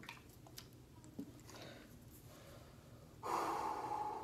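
A few faint handling clicks, then about three seconds in a man blows out a long, forceful breath through pursed lips, lasting about a second with a slight whistle in it.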